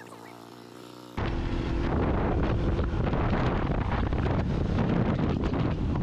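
Fantic Caballero 500 single-cylinder motorcycle engine running steadily at low revs. About a second in, it cuts abruptly to loud wind buffeting on the microphone, with the engine running underneath while riding.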